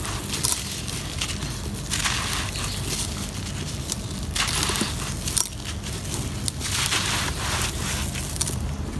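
Dry, gritty clumps of sandy dirt crumbling and crunching in bare hands, with loose grit pouring through the fingers. The crunching comes in several crisp bursts, a second or two apart.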